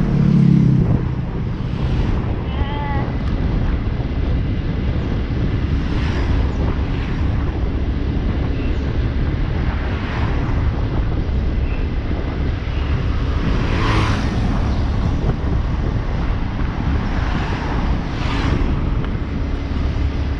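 Steady wind rush on the microphone of a moving motorcycle, with the engine and road noise underneath. There is a short high chirp about three seconds in and a brief rise of noise around fourteen seconds.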